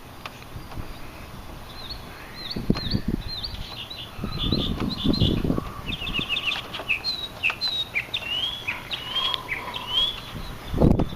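Small songbirds chirping and singing, many short quick notes that rise and fall and overlap, with a few dull low thumps mixed in.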